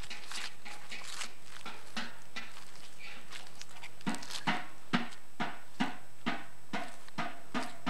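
Footsteps of a person walking across grass and dry ground. The steps come unevenly at first, then settle into a steady pace of about two a second from about four seconds in. A faint steady low hum runs underneath.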